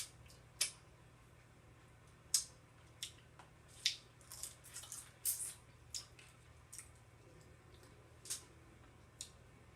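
Close-up eating sounds from a seafood boil: irregular sharp clicks and wet smacks of shell, fingers and mouth, a dozen or so spread unevenly, over a low steady hum.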